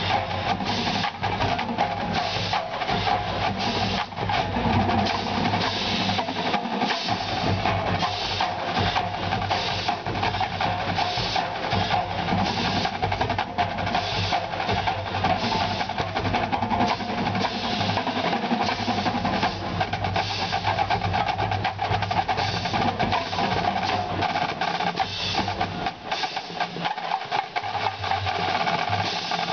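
Marching band percussion playing continuously, with fast snare strokes and drum rolls over bass drum.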